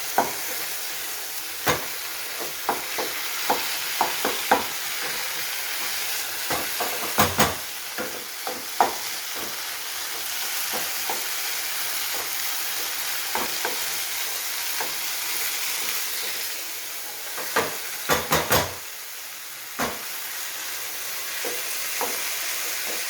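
Plantain-flower and lentil mixture sizzling in hot oil in a pan while a spatula stirs it, with a steady hiss and repeated sharp clicks and scrapes of the spatula against the pan, most clustered twice.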